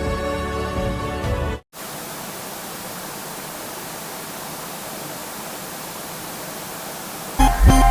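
Soft background music cuts off after about a second and a half, followed by a steady hiss of static noise. Loud electronic music with heavy bass beats starts near the end.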